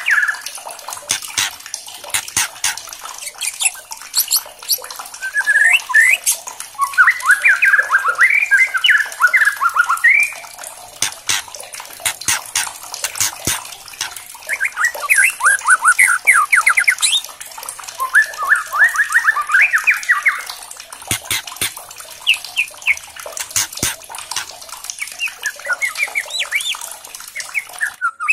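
White-rumped shama singing: phrases of varied whistled notes broken by bursts of fast, repeated rattling notes (kretekan).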